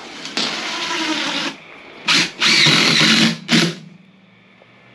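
Cordless DeWalt impact driver driving screws into a wooden frame. A run of about a second comes first, then three shorter bursts, the middle one the longest.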